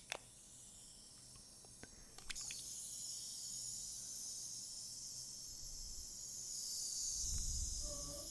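A few small clicks, then from about two seconds in a continuous high hiss of a fine facial mist sprayer spraying steadily.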